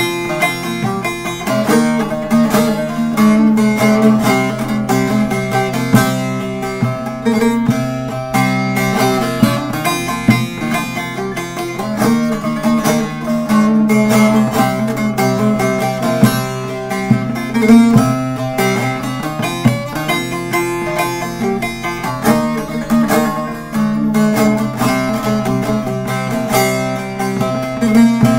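Short-neck bağlama with a carved mulberry body and a dark soundboard, strummed and picked in quick continuous runs, playing a Turkish folk piece.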